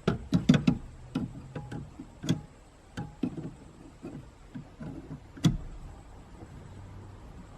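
Clicks and metallic knocks of long needle-nose pliers working at the clutch pedal's assist spring: a quick cluster of clicks at first, then scattered taps and one loud knock about five and a half seconds in, as the spring is pried at without coming off.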